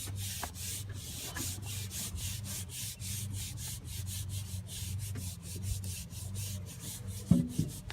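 Repeated rubbing strokes, about three a second, as a vinyl decal is smoothed flat against a truck's glass rear window, working out air bubbles.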